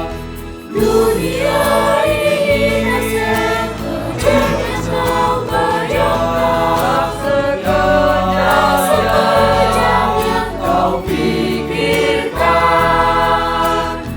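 High school choir singing in harmony, with a short break between phrases about half a second in.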